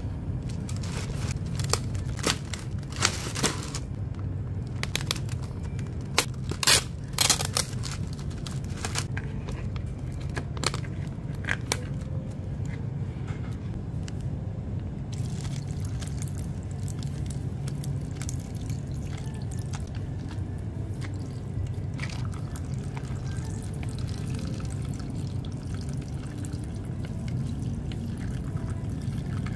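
Sharp clicks and crackles of a plastic ice cup and drink pouch being handled and opened, the loudest a few seconds in. Later, green grape ade is poured from a pouch over ice in a plastic cup. A steady low hum runs underneath.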